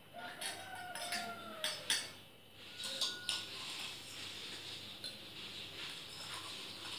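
A metal spoon clinking against stainless steel tumblers while the sarbath is stirred: several sharp clinks with brief ringing in the first three seconds, then a steady swishing.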